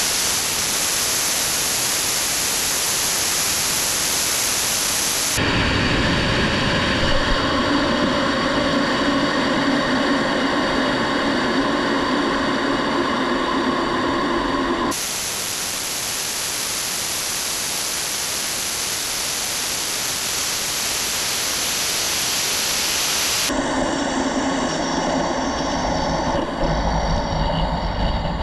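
Steady rushing hiss of air streaming past a high-power rocket's airframe in fast flight. The sound switches abruptly several times between a plain hiss and a hiss carrying steady whistling tones: about five seconds in, about fifteen seconds in, and again near the end.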